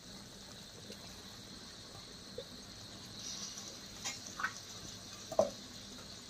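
Faint, steady sizzle of spice paste cooking in oil in a kadai, with a few short soft sounds, the loudest about five and a half seconds in.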